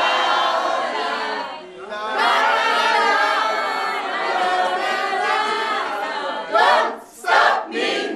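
A large group of people singing together loudly without instruments, with a short break about two seconds in, then two short loud shouts near the end.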